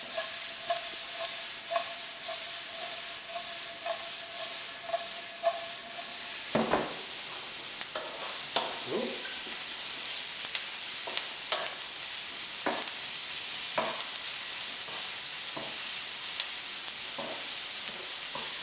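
Diced peppers, onion and garlic sizzling in olive oil in a frying pan, stirred with a wooden spatula that scrapes and knocks against the pan every second or two from about a third of the way in.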